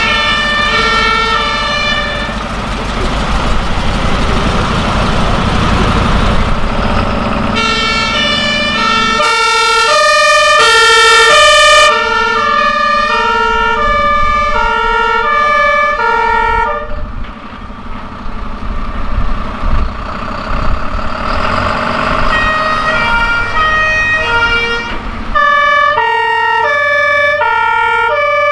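Fire engines' German two-tone sirens (Martinshorn) sounding in an alternating high–low pattern as the trucks pass. The sirens break off after about 17 seconds and start again a few seconds later. Truck engines rumble under them early on, and a loud hiss joins the sirens around ten seconds in.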